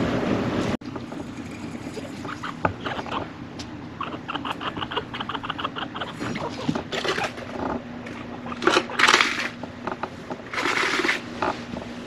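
Male chinchilla calling: a quick run of short, evenly spaced squeaks, about five a second, among scattered clicks and scuffles, with two louder hissing bursts near the end. A loud rushing noise cuts off suddenly under a second in.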